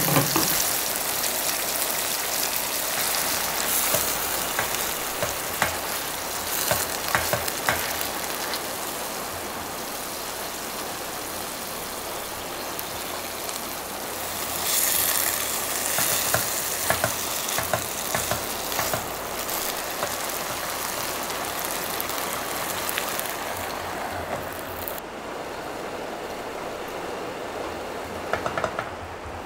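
Chicken frying and sizzling in a skillet on a portable gas burner, with scattered clicks and scrapes of utensils in the pan. About halfway through, the sizzle flares louder as sauce is poured into the hot pan, and it drops off near the end.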